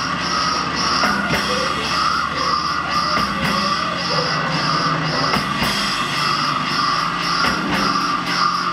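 Goregrind band playing live: guitar and drum kit, loud and dense, with a steady high beat about three to four times a second.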